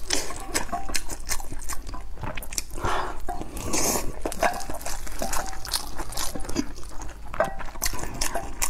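Close-miked wet squishing and crackling of a long sausage being pulled and torn apart with plastic-gloved hands, a dense run of small sticky clicks.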